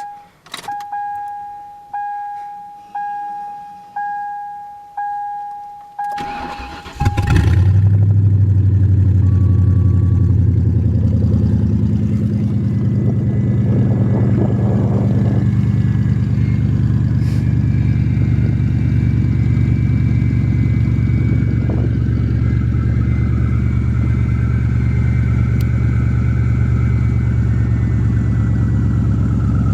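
A dashboard warning chime dings about once a second, then the 1995 Lincoln Town Car's 4.6-litre V8 cranks briefly and catches on a cold start. It then runs loud and steady through open headers with no exhaust. A faint whine comes in over the running engine later on, which the owner puts down to a bad idler pulley.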